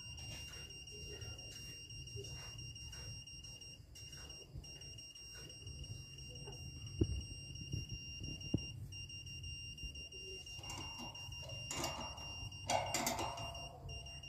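A satellite finder meter's steady high beep tone, holding almost without a break with a few short dropouts. A couple of sharp knocks come midway, and there is louder clattering near the end.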